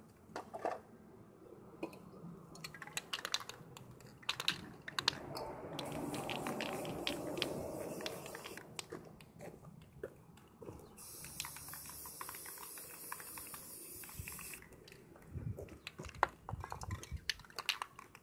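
Aerosol spray-paint can hissing in one steady burst of a few seconds past the middle, among scattered clicks and taps of handling.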